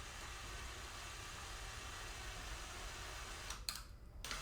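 Electric drill running steadily while boring a starter hole. It stops a little before the end, then runs again briefly.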